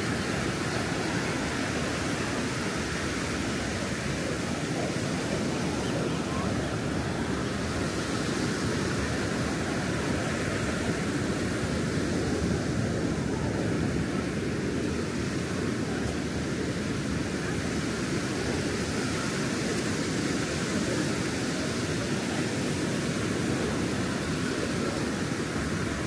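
Pacific Ocean surf washing onto the beach, a steady rushing noise.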